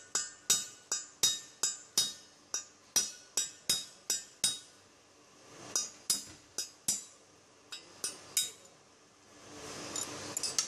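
Hammer blows on a steel drift knocking the remains of a broken, seized spark plug out of its channel in a cylinder head: sharp, ringing metal-on-metal strikes about three a second, a pause of about a second, another quick run of blows, then a few lighter taps.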